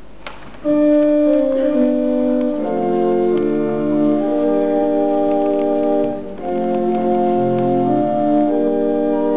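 Organ playing slow, sustained chords, starting about half a second in, with a short break between phrases about six seconds in.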